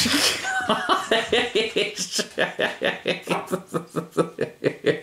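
A person laughing: a long run of quick chuckles, about four or five a second.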